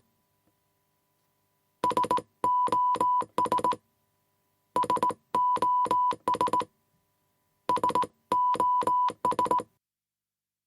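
Morse code beeps: a steady tone around 1 kHz keyed in short and long pulses, in the pattern short-short-short, long-long-long, short-short-short, the SOS distress signal. The signal is sent three times, one group about every three seconds, with near silence between the groups.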